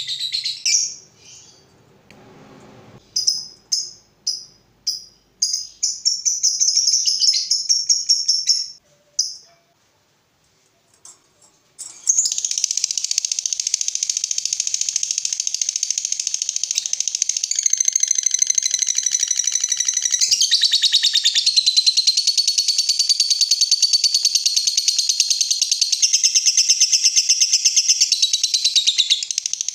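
Lovebird ngekek: a call at the start, several short sharp chirps, and a short chattering trill, then after a few seconds' pause one long, rapid, high-pitched chattering trill lasting about seventeen seconds to the end.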